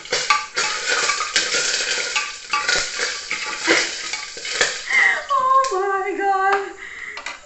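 Hot cooking oil sizzling and spattering in a pan while a metal spoon stirs and clinks against it. Near the end the sizzle dies down and a short wavering pitched sound, like a hum, rises over it.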